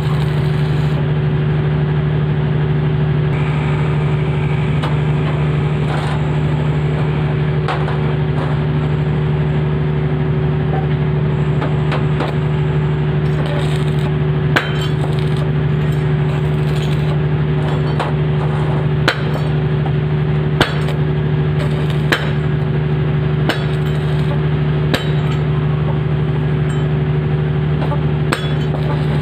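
Steady loud machine hum with a crackling haze, and sharp metallic taps every one to two seconds during the second half.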